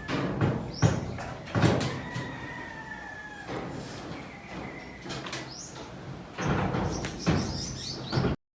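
Several sharp knocks and bangs, mixed with short bird chirps and a drawn-out, slightly falling whistle-like tone. It all cuts off abruptly near the end.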